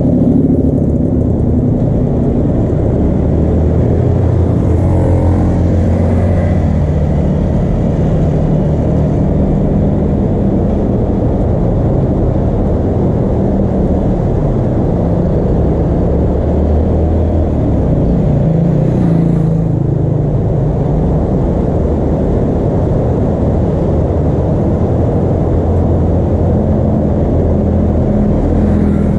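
A loud, steady low rumble with a wavering engine-like hum.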